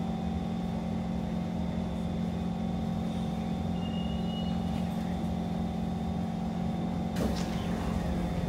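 Interior of a Kawasaki C151 metro car: a steady electrical hum and low rumble from the train's equipment. About seven seconds in, the doors begin to open with a brief burst of noise.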